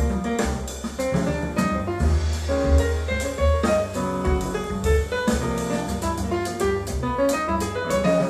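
Jazz piano trio music (piano, double bass and drum kit) played back through Triangle Borea BR03 BT powered speakers and picked up by microphones in the room. It runs steadily, with a prominent walking bass and frequent cymbal strokes.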